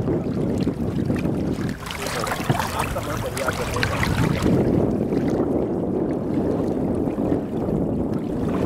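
Steady low rumble of a small boat moving on the water, with wind buffeting the microphone. A stretch of crackling noise starts about two seconds in and lasts a couple of seconds.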